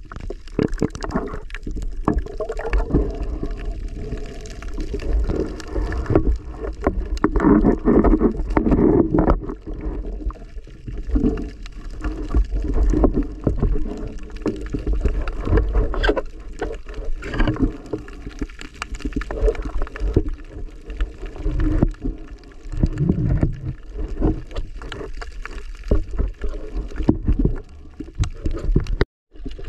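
Muffled underwater noise picked up by a camera in its waterproof housing: water gurgling and sloshing with a low rumble and many irregular knocks as the diver moves. The sound drops out for a moment near the end.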